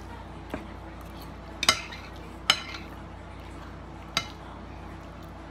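Metal forks clinking against ceramic dinner plates as two people eat: three sharp clinks and one fainter one, spaced about a second apart.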